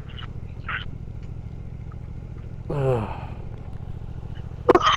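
Motorcycle engine running steadily while riding, a low drone with a fine even pulse. A brief falling tone comes about three seconds in, and a few sharp knocks near the end are the loudest sounds.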